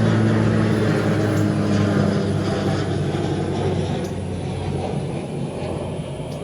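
A distant engine drone holding a steady pitch, slowly fading away over several seconds.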